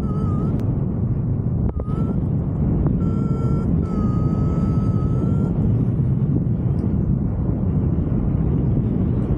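Wind buffeting the camera microphone on a flying paraglider: a loud, dense low rumble with no pause. Several short steady high beeping tones sound in the first half, the longest about a second and a half, near the middle.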